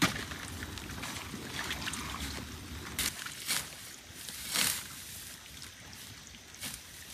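A hand tool chopping into a grassy mud bank at the water's edge while a man wades in the shallows. A few short dull strikes come about three seconds in, a longer scrape and splash follows shortly after, and a steady background hiss runs underneath.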